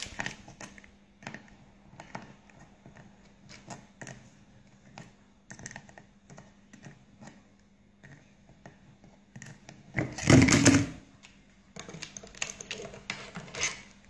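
African grey parrot's beak clicking and tapping against a clear acrylic puzzle box, in irregular single clicks, with a louder clatter about ten seconds in and a quick run of clicks near the end.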